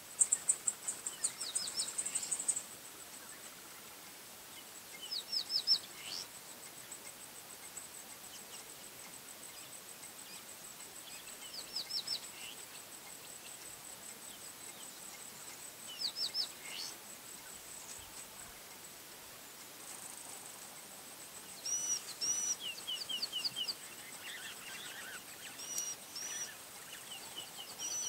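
Wild birds calling in bush: one bird repeats a short phrase of three or four quick, high notes every few seconds. In the last third other birds join with busier, arching calls. A thin, high, steady insect-like buzz runs underneath and trills rapidly at the start.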